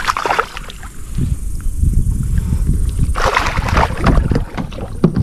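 Water sloshing and splashing against the side of a kayak as a hooked channel catfish is brought in, under a steady low rumble. Two louder splashy bursts come near the start and about three seconds in.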